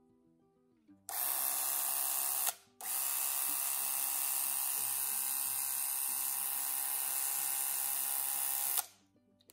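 Beaulieu 4008 ZM4 Super 8 movie camera's motor running with a steady mechanical noise. It starts about a second in, stops for a moment, then runs for about six seconds more before cutting off.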